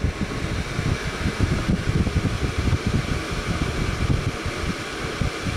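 Holmes mini tower fan running at medium speed without oscillating: a steady rush of air with an uneven low rumble.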